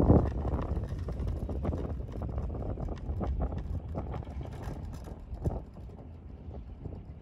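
Ride on a quad chairlift: a low rumble that fades over the first second or two, then a steady low running noise with scattered clicks and clacks from the lift's cable and chair, plus some wind on the microphone.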